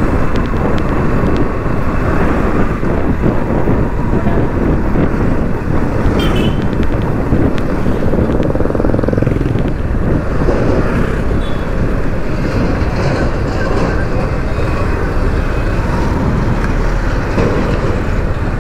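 Steady rushing noise of a motorcycle under way on the road, with wind and engine sounds blended together.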